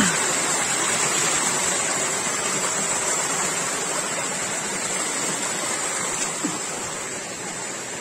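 Shallow rocky stream running over and between boulders: a steady rush of water that grows a little quieter near the end.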